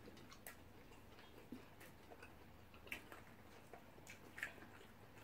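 Near silence broken by a few faint, scattered eating clicks: chewing, and fingers picking fried plantain and egg off the plates. The clearest come about three seconds and four and a half seconds in.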